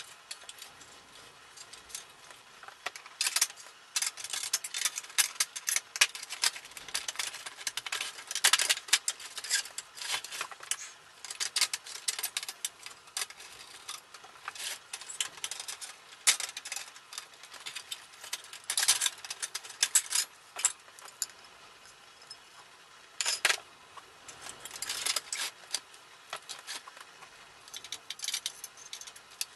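Sheet-metal panels, screws and the plastic housing of a Mr. Heater Buddy propane heater clinking and rattling as it is taken apart by hand, in irregular clusters of clicks with short pauses.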